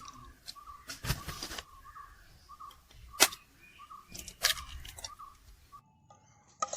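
Eggs being cracked and beaten in a bowl: a few sharp taps and clinks, the loudest about three seconds in. A faint chirp repeats about twice a second behind them, and the sound drops away almost to nothing near the end.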